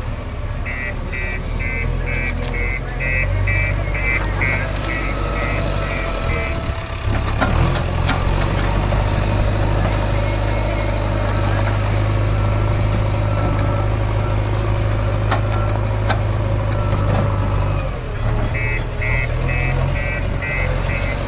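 Heavy diesel engines of a backhoe loader and tractors running steadily, the engine note rising under load partway through. A reversing alarm beeps about twice a second for several seconds near the start and again near the end.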